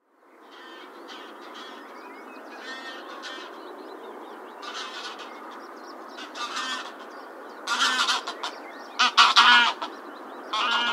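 A flock of greylag geese honking over a steady background hiss: scattered calls at first, then louder and closer together in the second half.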